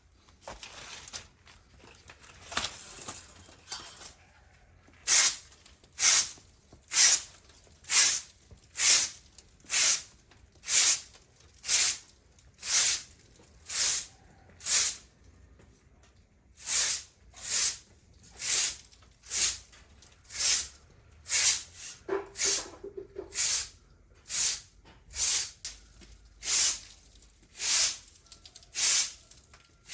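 Regular swishing strokes in snow, about one a second, with a short break about halfway.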